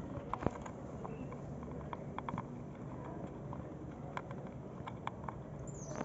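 Cockatiel gnawing on a computer mouse's cable with its beak: small irregular clicks and taps, some in quick pairs, over a faint steady hum, with a brief high squeak near the end.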